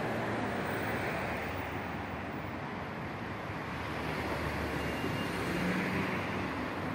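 Steady outdoor background noise, a low even rush with no distinct event, with a faint low hum briefly about five and a half seconds in.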